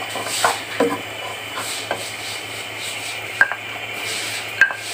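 Wooden spoon stirring chopped spring onions frying in oil in a non-stick kadai: scraping and knocking against the pan over a light, steady sizzle. Two sharp ringing taps of the spoon on the pan come about three and a half and four and a half seconds in.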